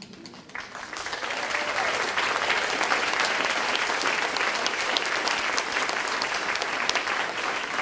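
Audience applauding: the clapping builds over the first second, then carries on steadily.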